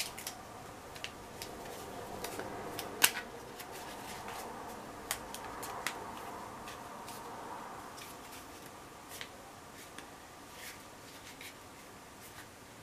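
Black plastic folding tablet stand being handled and unfolded: scattered clicks and taps of its hinged parts, with a sharper click about three seconds in and a couple more a few seconds later.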